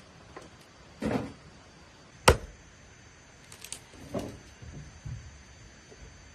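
A few scattered knocks and clatters, four or so, the sharpest and loudest a little over two seconds in.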